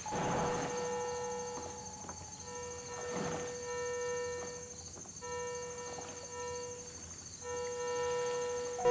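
Battery-powered synthesizer played as a slow improvisation with a reedy, wind-instrument-like patch: held tones that start and stop every two seconds or so, with a breathy hiss swelling between notes. A steady high-pitched whine runs underneath.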